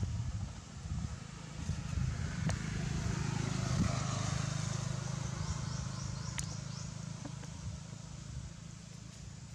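A motor vehicle passing, its sound swelling over about two seconds and then fading slowly, over a steady low rumble.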